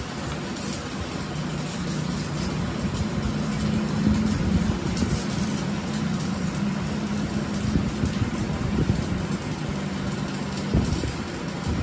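A machine motor humming steadily, with light metallic clicks as a steel nut is screwed by hand onto the freshly cut threads of a splined transmission shaft.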